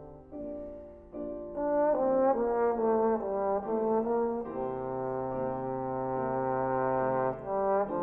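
Trombone playing a slow, lyrical melody: a string of short notes stepping downward in pitch, then a long low held note through much of the second half, a brief break, and new notes near the end.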